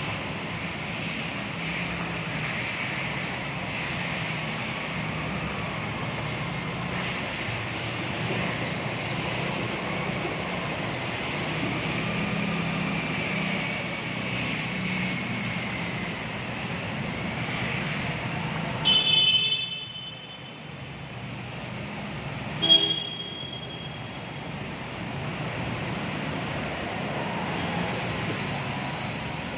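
Motor scooters running through floodwater, a steady mix of engine and water noise. A vehicle horn sounds for about a second about two-thirds of the way through, and a shorter toot follows a few seconds later.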